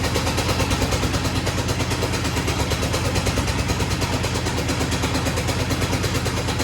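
Cub Cadet 129 garden tractor's single-cylinder Kohler engine running at a steady speed, with fast even firing pulses.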